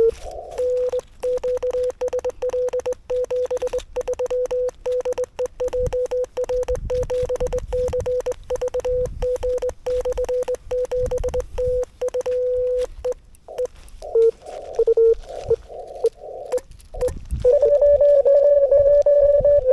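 Morse code (CW) on the 40 m amateur band from a Yaesu FTX-1F transceiver: a tone of about 500 Hz keyed on and off over a background of crackling static. Near the end a louder, slightly higher-pitched CW tone takes over.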